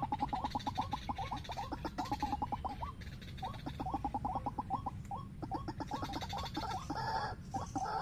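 White-breasted waterhen calling: a rapid run of short, repeated notes, about six a second, with a brief break about three seconds in.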